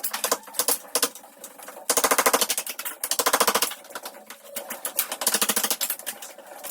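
A power tool hammering in short bursts of rapid blows, each burst lasting about a second, with short pauses between.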